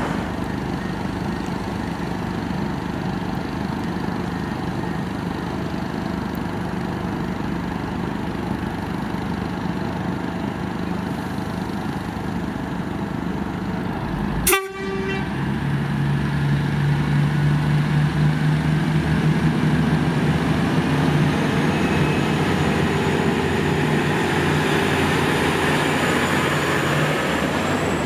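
V/Line diesel passenger train engine running at the platform, a steady mechanical drone with rail noise. About halfway there is a sharp click, after which a steady engine tone comes in and grows louder. A faint high whine rises near the end.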